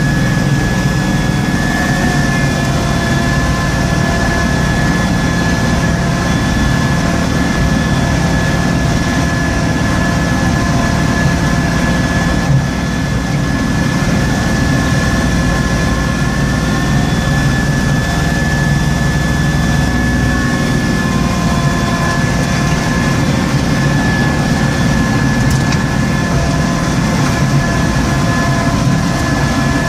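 Tractor engine and front-mounted snowblower running steadily while throwing snow, heard from inside the cab, with a steady high whine over the engine and blower noise.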